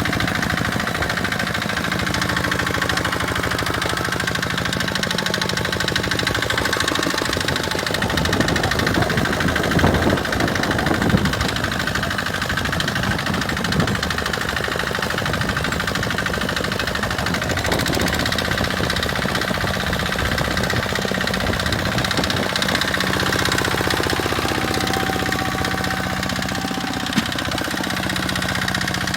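Tractor engine running steadily, louder for a few seconds near the middle, with its note shifting later on. A single sharp click comes near the end.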